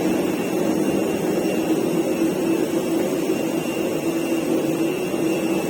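Steady cabin noise inside an Airbus A320-200: a constant rushing hum with a faint high whine, the sound of the aircraft's air conditioning and engines or APU running on the ground before takeoff.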